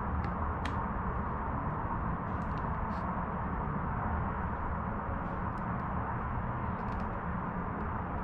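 Steady rushing background noise with a low hum, and a few faint light clicks as a steel caliper is worked against an aluminium spar.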